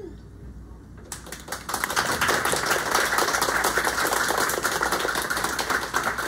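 Audience applauding. It starts about a second in, swells quickly and keeps going steadily.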